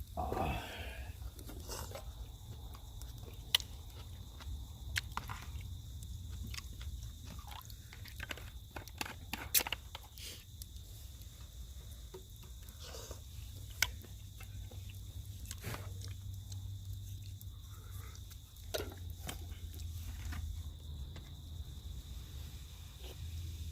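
A person eating a meal: chewing, with scattered sharp clicks over a steady low rumble.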